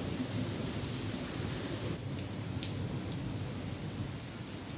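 Heavy rain pouring steadily onto a paved courtyard and plant pots, with a steady low rumble underneath and a few sharp drip ticks.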